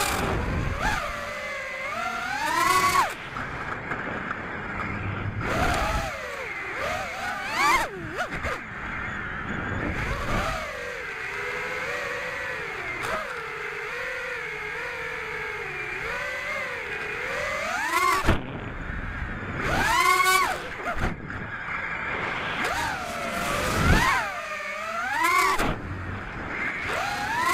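FPV quadcopter's brushless motors spinning 5x4.8 three-blade propellers, their whine sweeping up and down in pitch with the throttle through repeated climbs and dives, with short rushes of wind noise.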